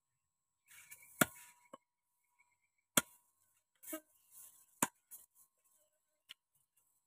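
Long kitchen knife chopping small fish on a wooden stump chopping block: three sharp knocks about two seconds apart, with fish being handled and scraped on the wood around them.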